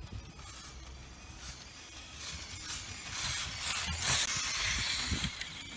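WPL B-24 1/16-scale RC truck driving across wet boards: a hiss from its tyres and small electric drivetrain that builds as it approaches, is loudest as it passes close about four seconds in, then eases off.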